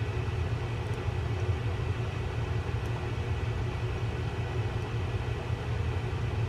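Steady low background hum and rumble, with a few faint clicks from small fishing-reel parts being handled.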